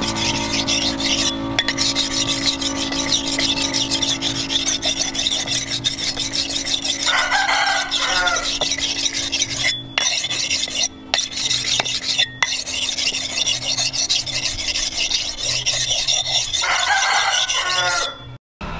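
A spring-steel kitchen axe blade being rubbed back and forth on a wet sharpening stone, a continuous rasping scrape of steel on stone that breaks off briefly a few times. A rooster crows twice, about seven seconds in and near the end.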